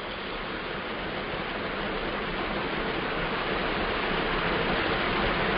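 Steady rushing hiss that grows gradually louder, with no distinct events.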